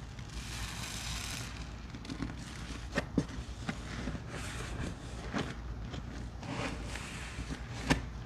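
Sudsy cleaning paste of Murphy's Oil Soap, Pine-Sol, soaked Irish Spring soap and baking soda being squished by hand. A hissing squelch comes in the first second or so, then scattered wet crackles and sharp pops, the loudest near the end.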